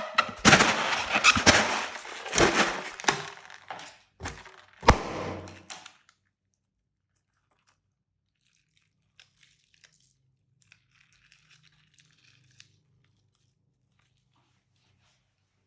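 Slime being squeezed and mixed by hand, giving dense crackling and crunching noises with sharp clicks. It stops abruptly about six seconds in, after which there is near silence with a few faint ticks.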